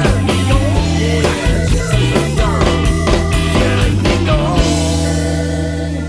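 Rock band's instrumental ending: drums and electric guitar playing, then a final chord rung out and held, starting to fade near the end.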